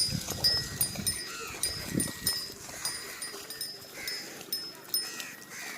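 Livestock calling in short, scattered cries, over a string of high, repeated chirps.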